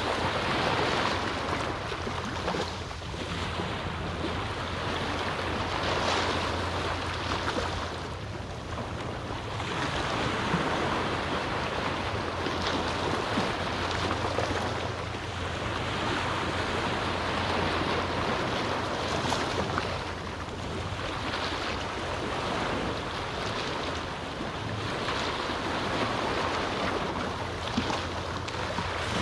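Small ocean waves on a calm sea breaking and washing up a beach, the surf noise swelling and easing every four to five seconds.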